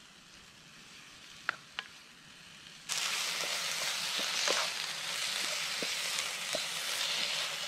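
Stir-fry vegetables sizzling in a frying pan on a camping stove as they are stirred with a wooden spoon. For the first three seconds there is only a faint hiss with a couple of small clicks; then the sizzle comes in suddenly and loud, with small pops scattered through it.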